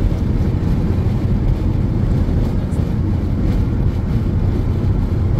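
Steady low rumble of tyre and wind noise inside a car cabin cruising at high motorway speed, around 140–160 km/h.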